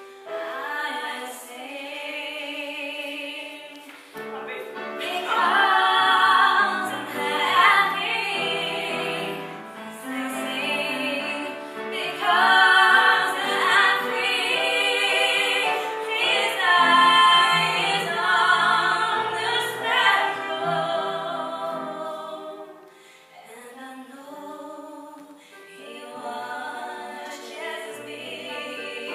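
Mixed community choir singing a slow gospel hymn, its phrases growing fuller and louder about five seconds in and falling back softer near the end.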